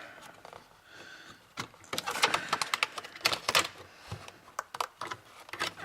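Irregular clicks, knocks and rattles of wires and parts being handled inside a server power supply's case, coming thick from about a second and a half in.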